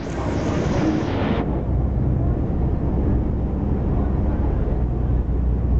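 Ferry boat's engine running with a steady low drone. For about the first second and a half, wind and rushing water noise lie over it, then cut off suddenly.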